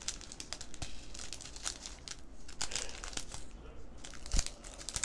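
Small plastic bags of diamond painting drills crinkling as they are handled and sorted, with one light thump near the end.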